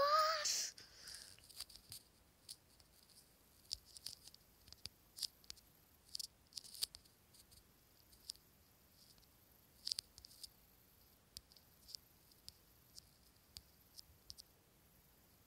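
Faint, irregular light taps and clicks, a few per second or fewer: fingertips tapping and swiping on a phone touchscreen. It opens with the end of a short rising voice sound.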